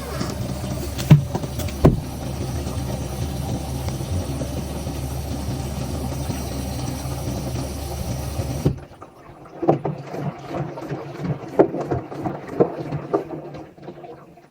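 Haier washing machine running its drum self-clean cycle, a steady low motor hum. The hum cuts off abruptly about nine seconds in, followed by quieter scattered clicks and knocks.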